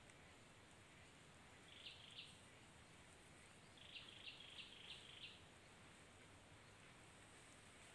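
Faint bird chirps in short runs of high, evenly spaced notes: three notes about two seconds in, then a run of five about four seconds in, over near silence.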